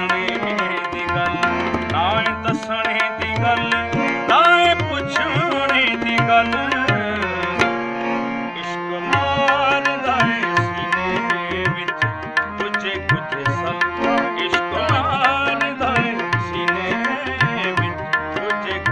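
Instrumental interlude of a Punjabi folk song: a Yamuna harmonium playing a melody over a steady tabla rhythm.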